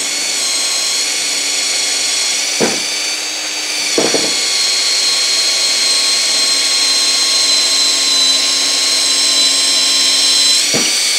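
Festool C18 brushless cordless drill running steadily under load, driving a long 6 mm bit through a thick oak block: an even motor-and-gearbox whine, broken by a few brief knocks.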